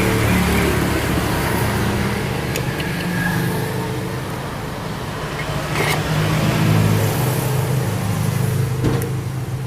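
Small engine running, its speed rising and falling a little, with a few sharp clicks or knocks.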